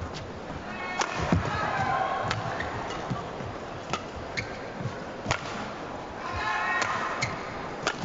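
Badminton rally: sharp cracks of rackets striking the shuttlecock, about one every second or so, over the steady background noise of a large arena crowd.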